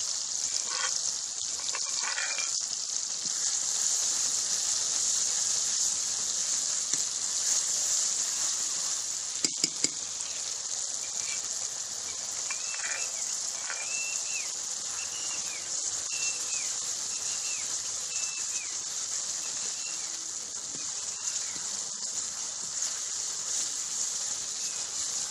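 Pounded onion, garlic, ginger and green chillies frying in hot mustard oil in a kadhai, a steady sizzling hiss as the paste browns. A couple of sharp clicks come about ten seconds in, and a faint series of short chirps sounds in the middle.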